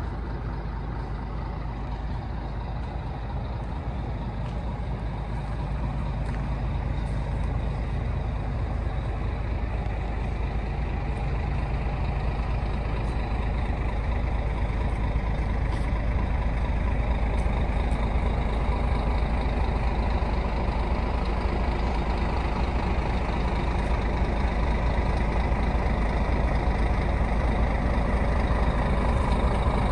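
Scania Irizar coach's diesel engine idling steadily: a low, even rumble that grows slowly louder.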